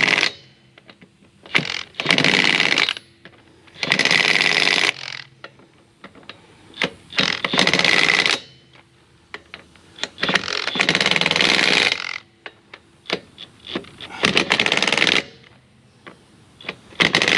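DeWalt 20V cordless 1/2-in drive impact wrench hammering on truck wheel lug nuts in a series of bursts, each lasting a second or so and coming about every three seconds, with small clicks of the socket going onto the next nut in between. It is a final tightening pass around the wheel to make sure every lug nut is tight.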